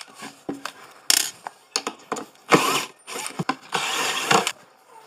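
Erbauer cordless drill-driver backing screws out of a concealed cabinet hinge in several short bursts, the longest near the end, with grating and clicks from the screws turning in the chipboard. The screws have worked loose because the chipboard inside the holes has broken down.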